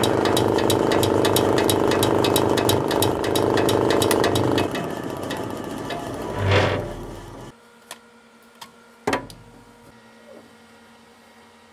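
Electric forage cutter running with a loud, fast, even ticking rattle over its motor hum, the abnormal noise the owner first took for a failed bearing. It is switched off and runs down, swelling once before stopping about seven seconds in, followed by a few sharp clicks and a knock.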